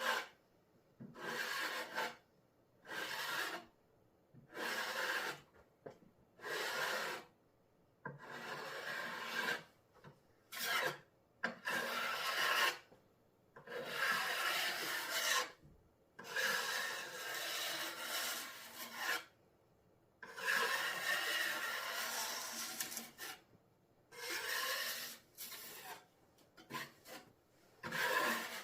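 Repeated scraping strokes of a blade spreading and smoothing wet Henry Feather Finish cement slurry across a table top, each stroke lasting from about half a second to three seconds with short pauses between.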